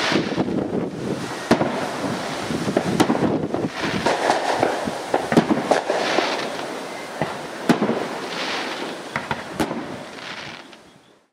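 Fireworks going off: many sharp bangs over continuous crackling, fading out near the end.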